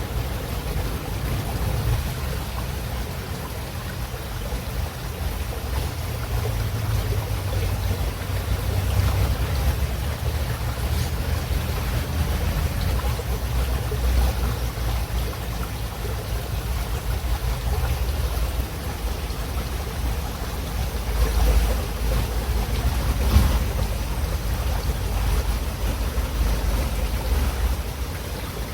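River water running: a steady rushing flow, strongest in the low end, with two brief louder surges about three quarters of the way through.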